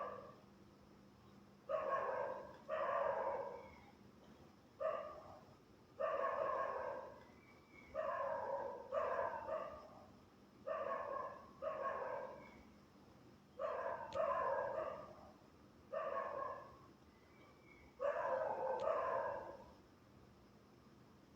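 A dog barking over and over, single barks and quick pairs every second or two with short pauses between them.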